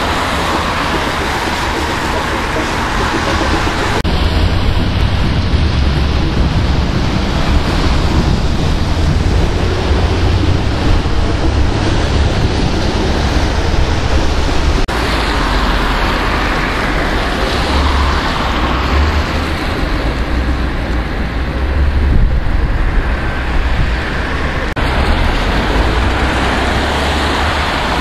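Steady outdoor noise: wind buffeting the microphone with a low, gusting rumble, over the wash of road traffic.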